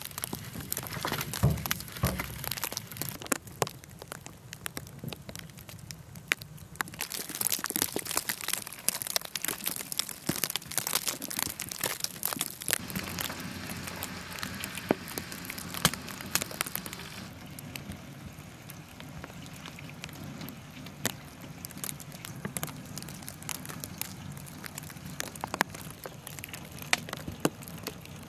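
Wood fire crackling with frequent sharp snaps and pops. About thirteen seconds in, a stream of water pouring from a hose splashes for a few seconds, and after that the snaps thin out.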